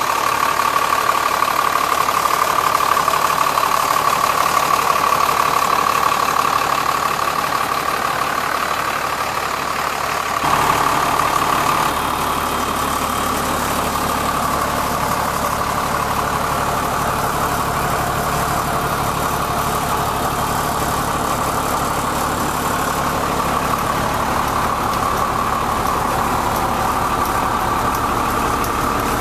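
A 1998 Ford F800's Cummins 5.9-litre straight-six diesel idling steadily. Close to the open engine bay, a steady whine sits over the idle. About ten seconds in the sound changes abruptly to the idle heard from inside the cab, with more low rumble.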